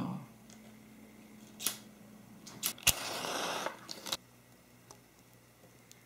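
A paper book match struck on the matchbook's striker strip: a few sharp scrapes, then the hiss of the match head flaring alight for about a second.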